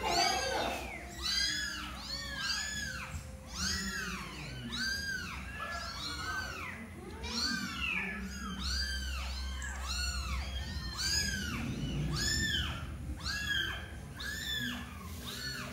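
Very young kittens mewing: high-pitched cries that rise and fall, about two a second and overlapping, from several kittens at once.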